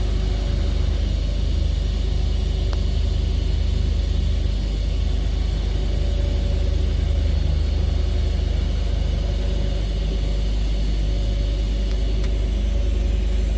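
Steady low hum with an even hiss from TIG welding on a DN50 district-heating steel pipe, running without a break.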